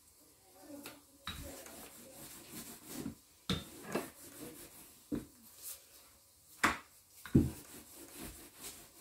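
Wooden rolling pin rolled back and forth over dough on a floured countertop, starting about a second in: a rough rubbing with several sharp knocks of the pin against the counter.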